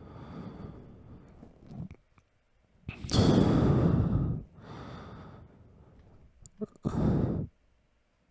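A person breathing heavily, slow and audible, in four breaths. Softer breaths alternate with two loud, sighing ones, about three seconds in and near the end. A few small clicks come just before the last loud breath.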